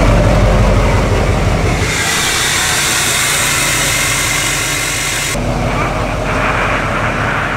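Lifted pickup truck's diesel engine idling steadily. A broad hiss joins it for about three seconds in the middle.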